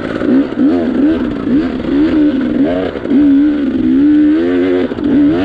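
Dirt bike engine revving up and down as the throttle is worked, its pitch rising and falling about once or twice a second.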